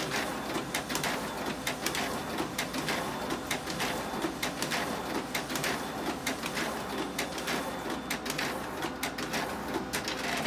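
Xerox AltaLink B8065 office copier running a copy job at speed: its document feeder and print engine whir steadily while paper feeds through in a rapid, even run of clicks.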